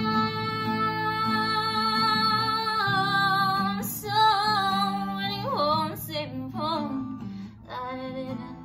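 A woman singing with a strummed acoustic guitar: she holds one long steady note, breaks into a wavering vocal run about four seconds in, and near the end the voice drops away and the guitar strumming carries on more quietly.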